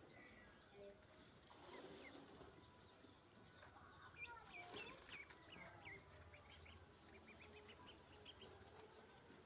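Ducklings peeping: faint, short, high chirps in quick runs, thickest from about four seconds in.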